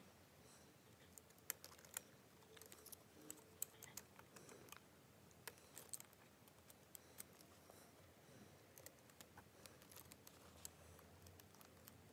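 Faint, irregular clicks and taps of Lego Technic plastic parts being handled and pressed together.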